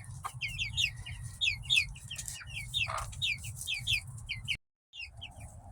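Young chickens peeping: a rapid run of short, high, falling peeps, with a lower cluck about three seconds in, over a low steady rumble. The sound cuts out for a moment near the end.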